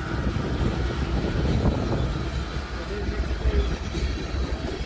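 Freight train passing at close range: a mid-train distributed-power diesel locomotive running by, with the steady low rumble of the freight cars' wheels on the rails.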